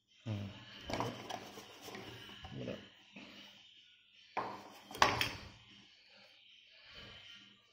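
Hard plastic mini 4WD body shell and parts being handled and set down on a cutting mat: light knocks and clatter, with a couple of sharp clacks about halfway through.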